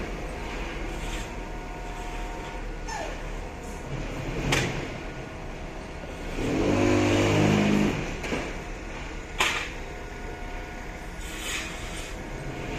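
Truck engine running steadily to power the knuckle-boom crane's hydraulics, speeding up for about a second and a half just past halfway while the boom is worked. There are two sharp knocks, about a third of the way in and about three quarters of the way in.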